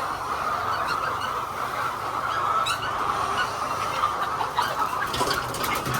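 A large flock of laying hens clucking together in a steady din, with a few light clicks about five seconds in.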